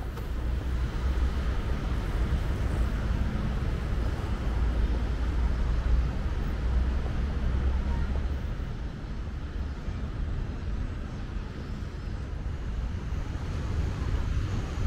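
Outdoor city ambience: a steady low rumble of traffic and engines, with a low hum that eases off about halfway through.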